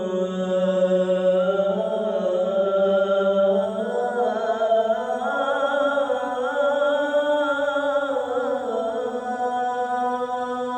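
A man's solo voice chanting the Asr adhan, holding one long ornamented note whose pitch slowly bends and wavers before it stops near the end. It is sung by a man with a cough and cold.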